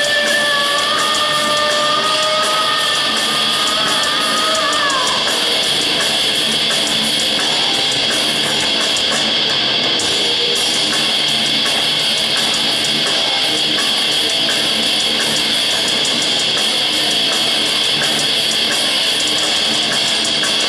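Heavy metal band playing live and loud: distorted electric guitars over drums. A long held note rings for the first few seconds and bends downward as it ends, then the dense riffing carries on.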